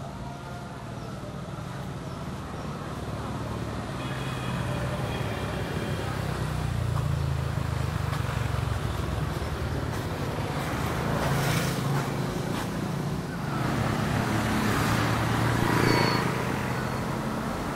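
Road traffic: motor vehicles driving past with their engines running, the noise swelling as vehicles go by around the middle and again near the end.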